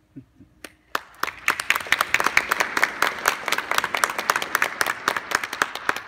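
Audience applauding in a large hall: many people clapping, starting about a second in and fading near the end.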